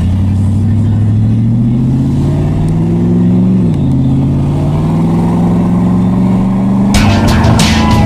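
Supercharged 5.4-litre V8 of a 2001 Ford F150 SVT Lightning through an upgraded exhaust, accelerating: the engine note climbs, drops sharply at an upshift a little over halfway, then climbs again. Music with a beat comes in near the end.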